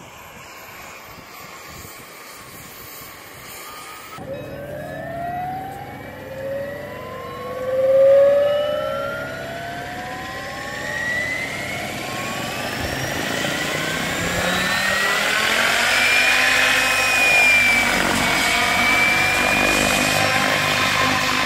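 Electric Goblin 700 Carbon RC helicopter's motor and rotor spooling up. A whine starts about four seconds in and rises steadily for about ten seconds, then holds steady as the governor holds its set headspeed of 2100 rpm.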